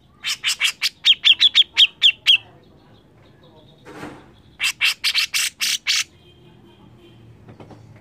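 Grey-cheeked bulbul (cucak jenggot) calling in two loud runs of sharp, rapid repeated notes: about a dozen quick notes, then after a short pause about eight more.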